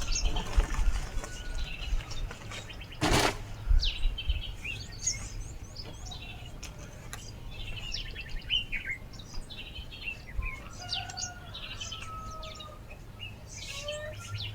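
Small birds chirping and calling throughout, with a few thin whistled notes about eleven to thirteen seconds in. A sharp swish or strike about three seconds in, with low thuds around the start.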